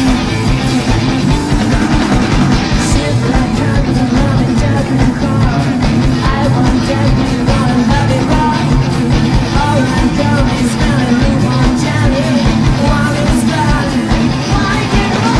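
Rock band playing live: electric guitars, bass and drums, with a male singer singing at the microphone over them, the vocal strongest in the second half.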